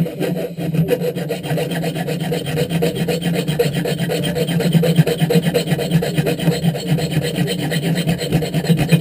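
Diamond file of a Leatherman Charge TTI multi-tool rasping rapidly back and forth across a steel bolt held in a vise, in even, steady strokes, sawing the bolt through to shorten it.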